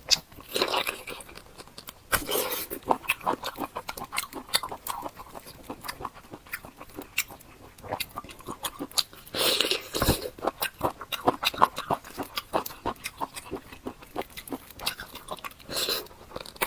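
Close-miked eating of a large octopus tentacle: wet chewing with many quick mouth clicks and smacks. Louder bites come about two seconds in, around nine to ten seconds in, and near the end.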